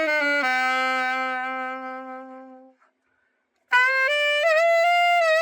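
Selmer Super Action 80 Series II alto saxophone being play-tested after a full overhaul. A short phrase ends in a long held note that fades away. After about a second of silence, a new phrase begins near the end.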